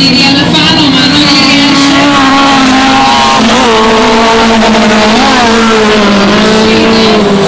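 Autocross race cars' engines running hard at high revs, loud and steady, with the pitch dipping and climbing again about halfway through and once more a couple of seconds later.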